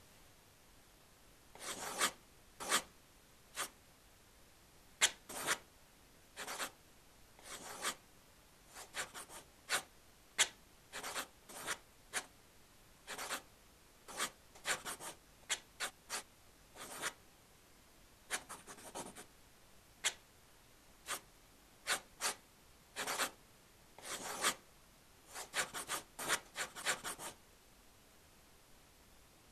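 A paintbrush stroking across a wall: a string of short, dry rubbing strokes at an uneven pace, some coming in quick runs of three or four.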